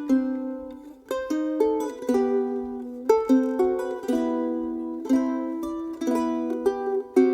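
Ukulele music: picked notes and chords, each struck sharply and ringing out as it fades, in a steady rhythm with no bass underneath.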